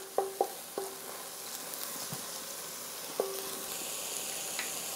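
Diced onion and green bell pepper sizzling in hot olive oil in a stainless steel pan while being stirred with a wooden spoon. The spoon knocks the pan three times in the first second and once about three seconds in, each a short ringing clink.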